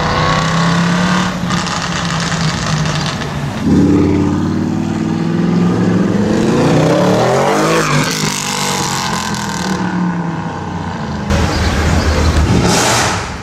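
Audi RS6 C7's twin-turbo V8, fitted with a Capristo exhaust, running loud. Its note jumps up about four seconds in and climbs in pitch for several seconds, then falls back, with another loud surge near the end.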